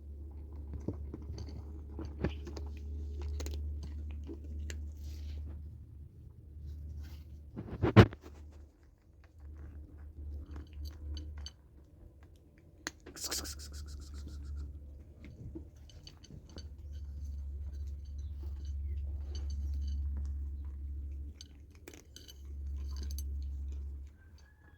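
Cats chewing and crunching food, with scattered small clicks and one sharp knock about eight seconds in.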